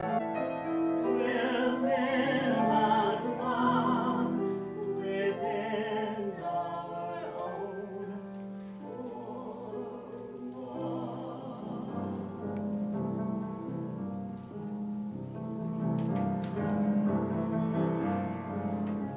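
Musical-theatre duet: a man and a woman singing long, held notes with vibrato over piano accompaniment. About eight seconds in the voices end and the piano plays on alone.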